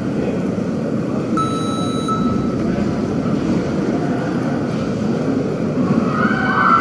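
Steady background noise of a large indoor sports hall, with a brief thin high tone about a second and a half in.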